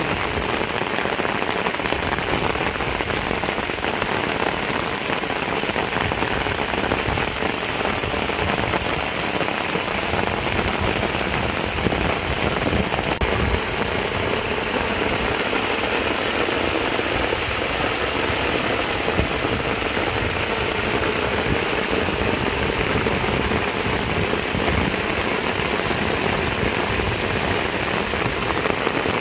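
Heavy rain pouring steadily, an even hiss with no letup.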